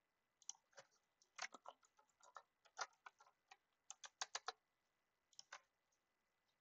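Faint computer keyboard keystrokes in an irregular run of typing, ending with a last couple of clicks about five and a half seconds in.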